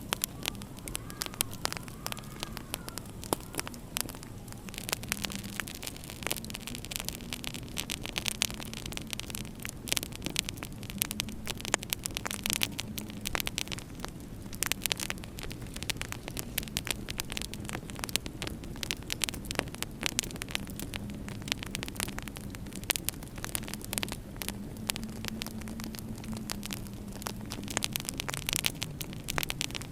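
Wood fire crackling in a fireplace, with many sharp pops, over a low howl of winter wind that swells and fades.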